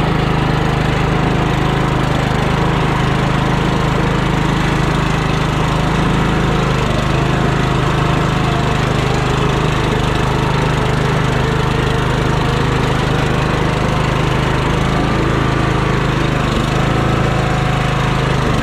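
Troy-Bilt Pony lawn tractor engine running at a steady speed while the tractor drives across grass on a newly fitted drive belt.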